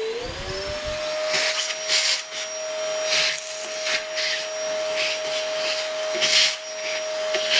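Vacuum cleaner motor spinning up to a steady whine just after the start, then running while its nozzle sucks out the grinder compartment of a De'Longhi bean-to-cup coffee machine. Irregular rushes of air are heard several times as the nozzle moves about.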